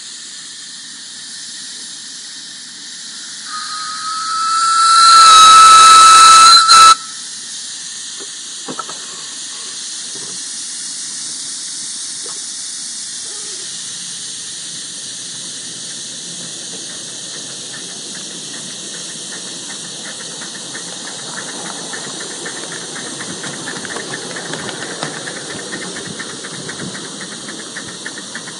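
Live-steam 5-inch-gauge C2 Atlantic model locomotive: steady steam hissing, then its steam whistle blown loudly for about three seconds, cutting off sharply. It then starts away, its exhaust beats coming faster and louder toward the end.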